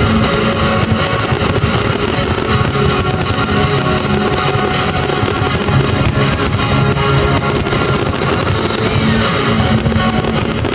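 Guitar-led music playing loudly, with fireworks bangs and crackle scattered through it.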